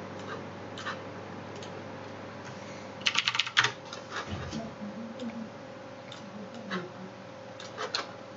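Computer keyboard typing: a quick run of about six keystrokes a little after three seconds in, then scattered single clicks, over a faint steady electrical hum.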